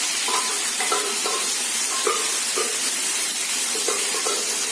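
Spiced masala with pork frying in hot oil in a pan: a steady sizzle, with short scrapes of a spoon stirring through it.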